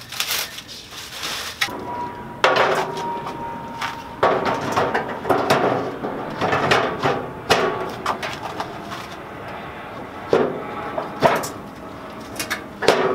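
Heavy steel griddle top being set down on its cart frame and shifted into place: a run of sharp metal clanks and knocks, about eight at uneven intervals, several with a brief metallic ring.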